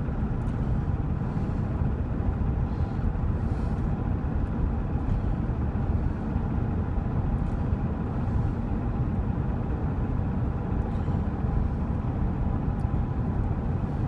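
Steady engine and road noise inside the cab of a 1999 GMC Suburban with a 5.7 L Vortec V8 while driving, the engine not yet warmed up.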